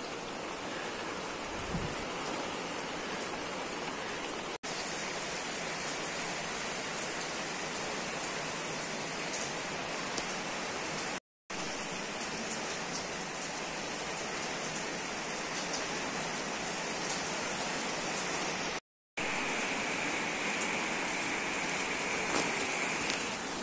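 Steady rain falling on a flat concrete rooftop and splashing into puddles, an even hiss that breaks off for an instant three times where the recording is cut.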